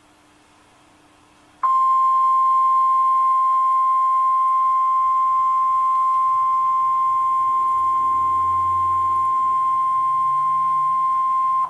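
NOAA Weather Radio 1050 Hz warning alarm tone: one steady, loud, high beep that starts abruptly about two seconds in and holds for about ten seconds before cutting off, the signal that a warning message follows.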